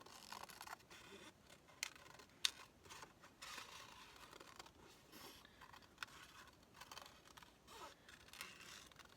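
Scissors cutting paper, heard faintly: a run of irregular short snips with a few sharp clicks of the blades, the loudest about two and a half seconds in.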